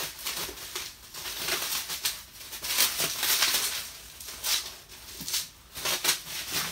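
Plastic bubble wrap crinkling and rustling in irregular bursts as it is unwrapped from a package by hand.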